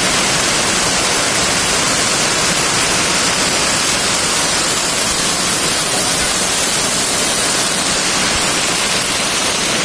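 Torrential rain: a loud, steady hiss of a heavy downpour.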